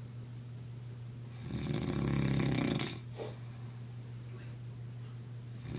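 A man snoring in his sleep: one long snore about a second and a half in, a brief sound just after it, and the next snore starting near the end. Underneath runs a steady low hum.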